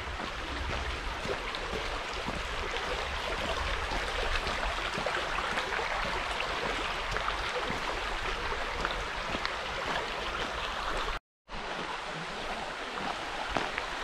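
Shallow burn (stream) rushing steadily over stones. The sound cuts out completely for a split second about eleven seconds in.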